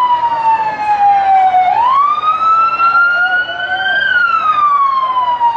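Sheriff's patrol car siren sounding a slow wail: the pitch slides down, swoops up sharply about two seconds in, climbs slowly and falls again near the end. It is the signal to enter the hunt areas and start the egg hunt.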